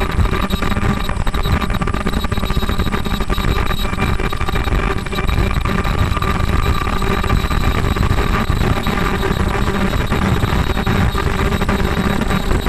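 Automatic shower-cap (bouffant cap) making machine running: a loud, steady mechanical clatter of rapid clicks over a low motor rumble, with several steady high tones, dipping briefly about five seconds in.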